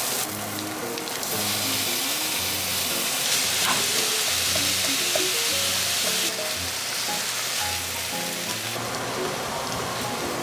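Onions and green peppers, then ground pork, sizzling as they fry in a skillet and are stirred with a slotted spatula. The sizzle gets louder and softer in abrupt steps several times, with light background music underneath.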